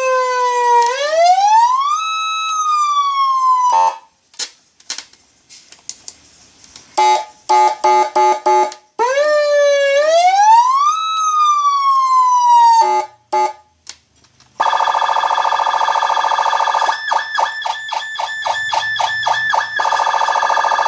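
Kd PA-100D electronic siren amplifier playing through its speaker and stepping through several siren tones. There are swooping tones that fall and then rise in pitch, short choppy pulsed tones, and, from about two-thirds of the way in, a steady harsh multi-tone alarm that breaks into a rapid stutter.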